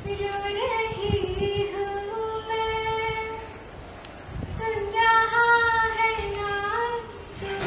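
A woman singing solo in two long phrases of held notes, with a short pause between them.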